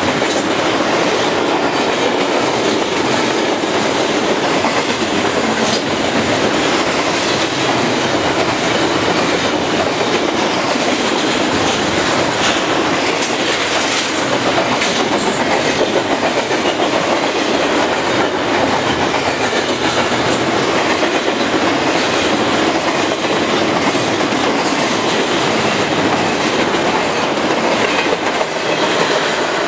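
Double-stack intermodal container freight train passing close by: a loud, steady rumble and rattle of wheels on rail with scattered clicking, easing off right at the end as the last cars go by.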